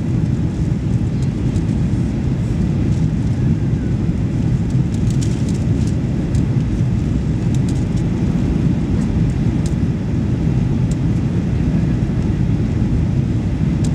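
Steady low rumble inside the cabin of a Boeing 737 Next Generation on approach: its CFM56-7 engines and the airflow over the airframe with the flaps extended.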